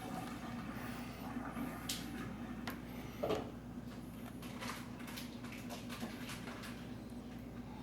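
Scattered small clicks and taps of hands handling laptop parts and tools during reassembly, with one duller knock about three seconds in, over a steady low hum.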